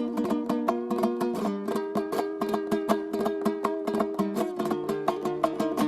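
Plucked string instrument played in fast, even strokes, several a second, with the notes shifting now and then: an instrumental folk-music passage.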